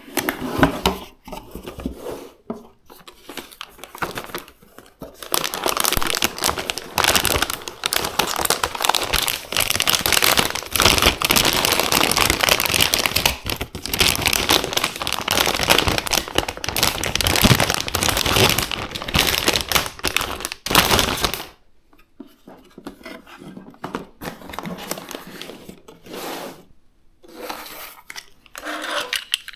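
Plastic and cardboard packaging being handled and opened, crinkling and tearing almost continuously through the middle stretch, then giving way to a few sparser rustles and clicks.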